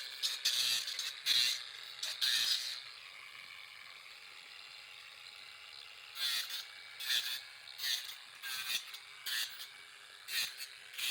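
Pneumatic tamper ramming earth into wall formwork, running in short rattling bursts: a quick run of them, a quieter pause of a few seconds, then scattered bursts again.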